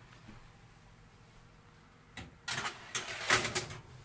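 Metal baking tray pushed into an oven on its rack rails: a click a couple of seconds in, then about a second and a half of scraping and clattering metal.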